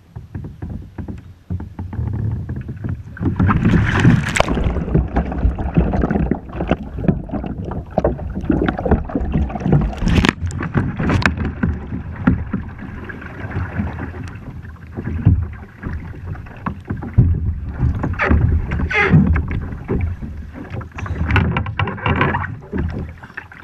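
Water splashing and sloshing around a plastic fishing kayak, with many sharp knocks and thuds against the hull; it starts abruptly and keeps going, busy and uneven.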